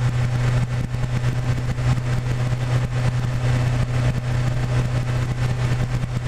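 Motorcycle engine running at a steady cruise with an even, unchanging low tone, under a rush of riding wind.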